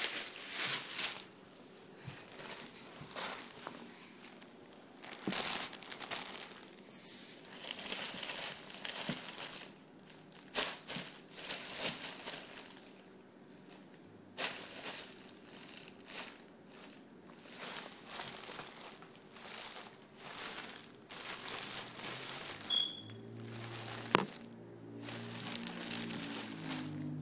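Thin plastic bag crinkling and rustling in irregular bursts as a kitten wriggles around inside it.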